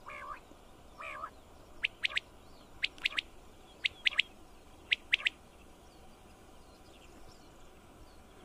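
Male common quail singing its three-note 'wet-my-lips' call four times, about a second apart, each phrase quick and sharp. Two softer, lower calls come just before.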